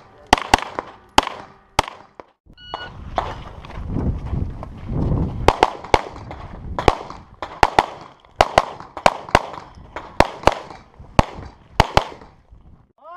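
Strings of rapid pistol shots fired in a practical shooting stage, with a short electronic shot-timer beep about three seconds in and a low rumble of wind or handling around four to five seconds before the shooting resumes.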